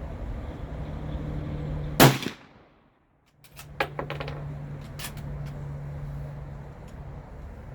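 A single rifle shot about two seconds in. About a second and a half later comes a quick run of sharp clicks. A steady low hum runs underneath.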